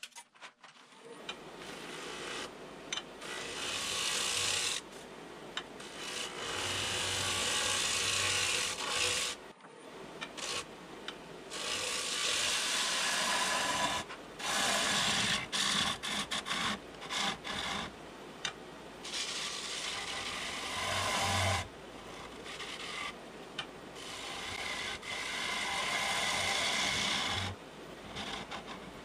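Turning gouge cutting the inside of a spinning green (wet) butternut bowl on a lathe: a steady shearing hiss of the wood being cut. It comes in passes that stop and start again every few seconds, building up over the first few seconds as the lathe comes up to speed.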